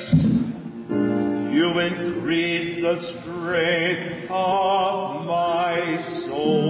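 A man singing solo in long held notes with a wavering vibrato, after a brief low thump at the very start.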